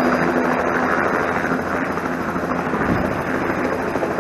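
Light single-turbine helicopter touching down on a helipad, its rotor and turbine running with a steady low hum under a constant rushing noise that eases slightly as it settles.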